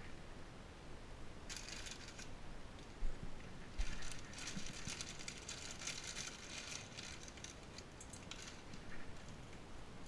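Plastic packet crinkling in spells as dried noodle nests are handled and pulled from it, with a couple of short knocks a few seconds in.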